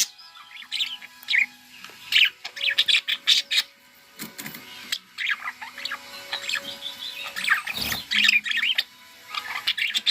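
Pet budgerigars chattering: a busy run of short chirps and squawks, with a brief thump about eight seconds in.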